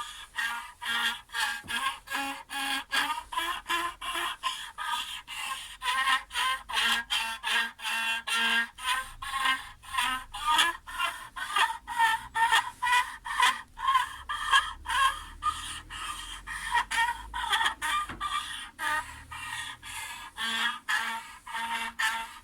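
Single gut-less, unrosined string of a homemade lyre bowed with a wooden broom handle in quick back-and-forth strokes, about two or three a second, giving a rough screeching, creaking sound. Under the scratch a faint low note changes pitch now and then as a finger stops the string.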